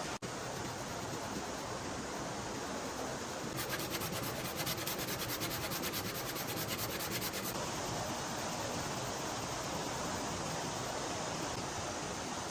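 Rapid, even rubbing or scraping strokes, about eight a second, begin about three and a half seconds in and last about four seconds, over a steady rushing noise.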